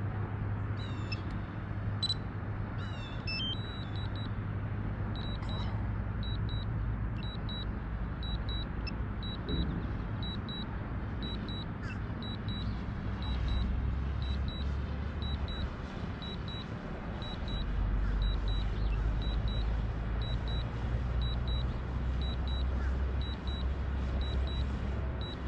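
Steady low rumble of road traffic that swells twice as vehicles pass. A short, high electronic double beep repeats a little faster than once a second from a few seconds in, and a few quick chirps come near the start.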